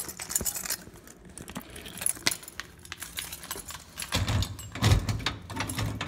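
A bunch of keys jangling in hand, with many small metallic clicks and clinks. From about four seconds in there are several dull thumps under the jingling.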